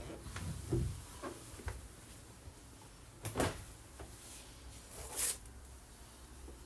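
Brief knocks and rustles of things being handled, with louder ones about three and five seconds in.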